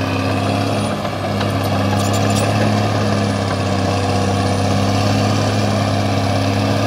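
CAT D6R XL bulldozer's diesel engine running steadily, with a brief dip in level about a second in and a few light clicks around two seconds in.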